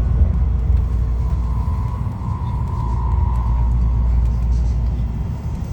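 Tokaido Shinkansen train running, a steady low rumble heard inside the passenger car.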